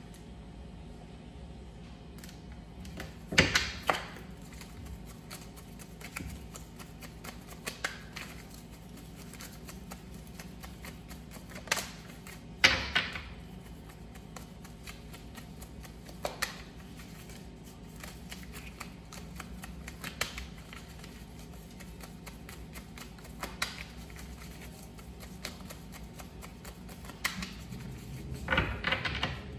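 Tarot cards being gathered up and shuffled by hand, with sharp card snaps and taps on a tabletop every few seconds. The loudest comes about twelve seconds in, and there is a cluster near the end, over a faint steady hum.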